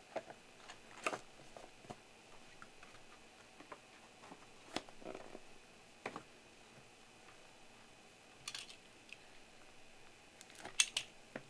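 Shrink-wrapped trading card boxes being handled on a table: scattered light taps and clicks of cardboard and plastic wrap. The loudest, sharpest clicks come near the end, as a box cutter is put to the box's shrink wrap to open it.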